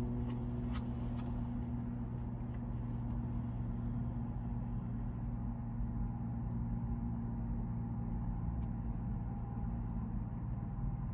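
Steady low hum inside the cabin of a parked car with its engine running, with a few faint clicks near the start.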